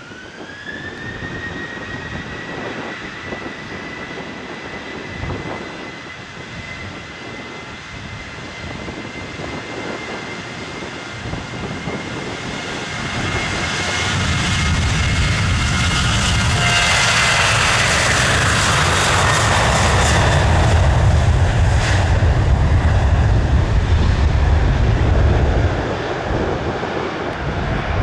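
Jet airliner taking off: its engines spool up with a whine that rises and then holds steady. About thirteen seconds in, a loud low rumble builds as the aircraft accelerates down the runway and passes, its pitch falling as it goes by, then it eases off near the end.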